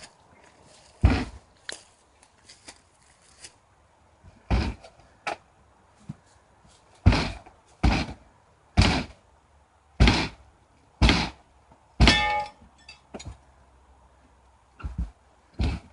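A series of heavy thumps, about a dozen, coming irregularly roughly a second apart.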